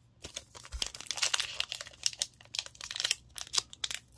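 Foil wrapper of a Pokémon TCG Paldean Fates booster pack crinkling in the hands in a quick string of sharp crackles as the pack is picked up and torn open at the top.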